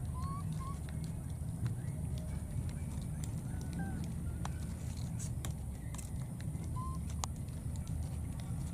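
Outdoor ambience: a steady low rumble, with a few faint short rising chirps and scattered light clicks and crackles of dry palm fronds as the baby monkeys shift on them.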